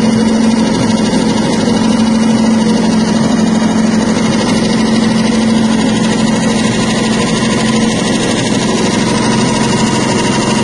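Small engine-driven soybean hull-separating (dehulling) machine running steadily under load, with a constant low hum as the split beans pass through.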